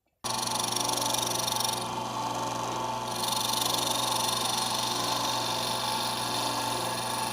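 A machine starts up suddenly and runs steadily, a hum with several held tones under a hiss.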